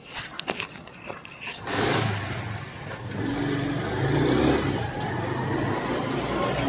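A few sharp clicks and knocks as a motorcycle helmet is handled and fastened, then from about two seconds in a motorcycle engine runs louder and steadily, with a low hum.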